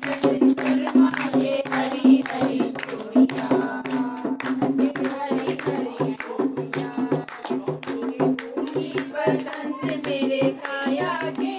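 Women singing folk songs to a hand-played dholak, the drum struck in a steady, quick rhythm.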